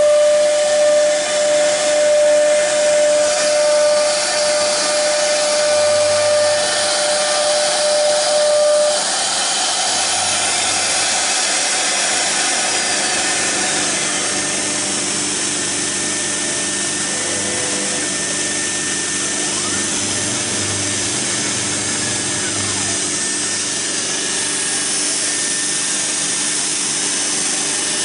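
4.5 kW spindle of a CNC router running at high speed, its bit routing a profiled groove into a wooden board: a steady high whine over a continuous hiss of cutting. About a third of the way through, the clear whine tone drops out and the sound gets slightly quieter, leaving the even cutting hiss.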